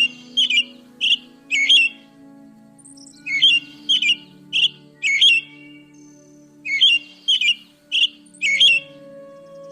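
A bird giving short, sharp chirping calls in groups of four, about two a second, with pauses of a second or two between groups. Soft background music with sustained tones runs underneath.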